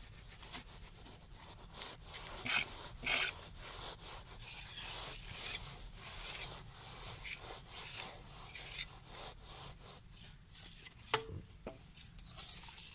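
Moulding sand being scraped and worked by hand and a small trowel around the sprue pins of a casting mould: irregular rubbing, scraping strokes, with a light knock or two near the end.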